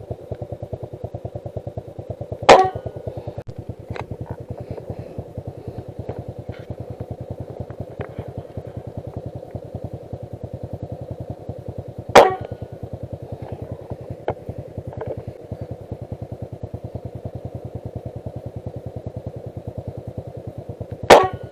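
Three single rifle shots, each a sharp crack about ten seconds apart, over a fast, steady pulsing in the background.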